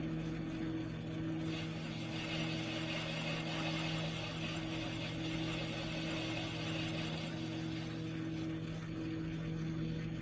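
Metal lathe running with a steady motor and gear hum. About a second and a half in, a hissing cutting noise joins it as the tool takes a light finishing cut along the tapered surface of the spinning workpiece.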